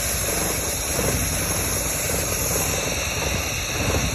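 Car engine idling, close up in the engine bay, with a steady fine pulsing. A split hose at the throttle body is letting air in, which the owner takes for the cause of the rough idle.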